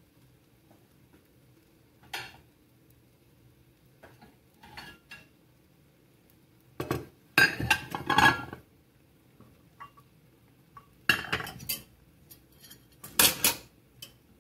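Ceramic plates, a saucer and a cup clattering and clinking as they are set down and stacked on a granite countertop, in several short bursts, the loudest about seven to eight and a half seconds in.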